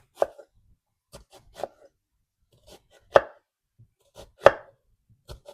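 Kitchen knife cutting through an onion and knocking on the cutting board: slow single cuts about a second and a half apart, the last two the loudest, with light taps between.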